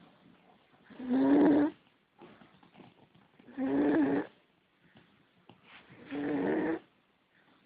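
Snoring: three snores about two and a half seconds apart, each under a second long, with a steady pitch.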